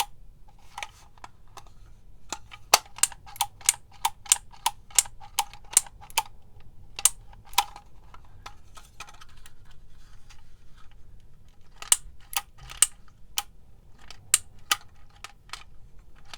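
Hand-squeezed label maker clicking as its handle is squeezed over and over to feed the label tape through. The sharp clicks come in runs of about three a second, with short pauses between runs.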